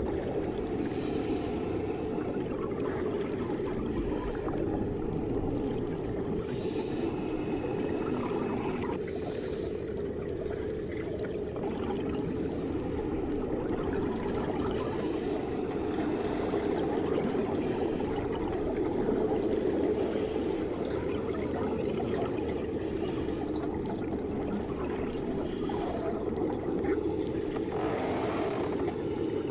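Muffled underwater ambience of a swimming pool heard through an underwater microphone: a steady, dense low rush of water, with faint high hissy pulses repeating every couple of seconds.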